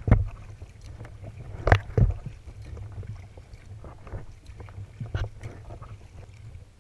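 Kayak paddle strokes: the blade dipping into the water with a few sharp splashes, loudest at the start and just before two seconds in, another about five seconds in, over a steady low rumble.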